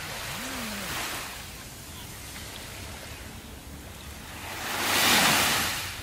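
Small waves lapping on a sandy beach, with a gentle wash about a second in and a larger wave breaking and washing up the sand about five seconds in, the loudest moment.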